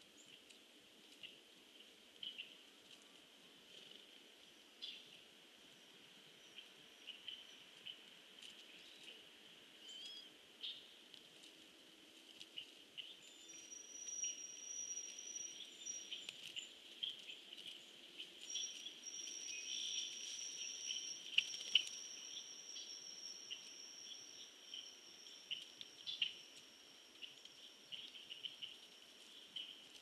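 Faint outdoor ambience with short, scattered bird chips and calls over a steady high hiss. A thin, high, steady tone runs through the middle stretch, breaking once.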